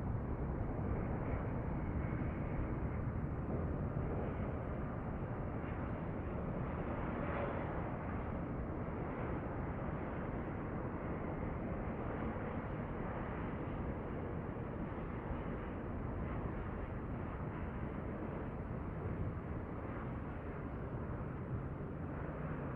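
Jet airliner engine noise heard from a distance, steady and slowly fading.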